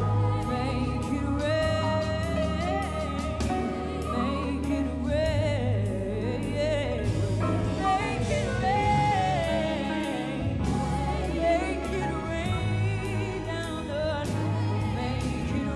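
A woman singing a song live, accompanied by a symphony orchestra and electric guitar.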